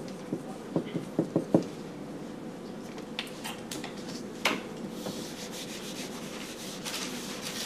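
Whiteboard marker strokes on a whiteboard, a quick run of short scratchy taps in the first second and a half, then a few single clicks. From about five seconds in, a longer stretch of rubbing as the board is wiped with an eraser, over a faint steady hum.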